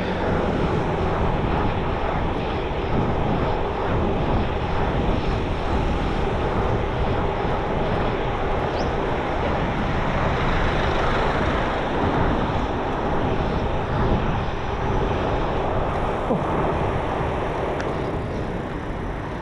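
Steady rush of wind over the microphone and road noise from riding a bicycle along a road, with a low drone of motor traffic in the mix.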